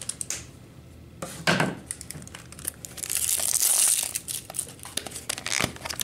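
Crinkly plastic toy packaging being handled and torn open: scattered rustles, a short burst about a second and a half in, and a longer, louder stretch of crinkling about three seconds in.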